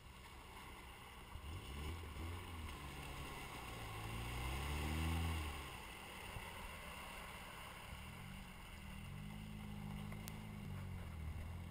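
Toyota trail truck's engine revving hard under load as it climbs out of a deep mud hole: a short rise and fall about two seconds in, a longer climb in pitch peaking around five seconds, then a long sustained rev from about eight to eleven seconds.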